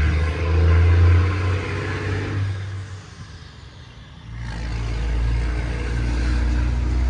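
A passing dump truck's diesel engine lugging under load at low revs, a deep rumble. It drops away about three seconds in and picks back up a second or so later.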